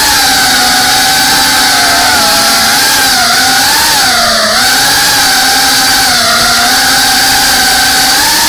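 FPV drone's brushless motors and propellers whining loudly, heard from the camera on board, the pitch wavering slightly up and down with the throttle over a steady hiss of airflow.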